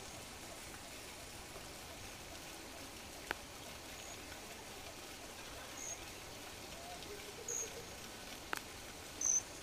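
Quiet outdoor morning ambience: a faint steady hiss with a few brief high chirps scattered through it and two faint clicks, about three seconds apart.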